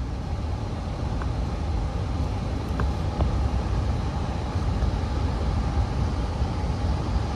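Split-system heat pump running while cooling: a steady low rumble with a faint steady hum.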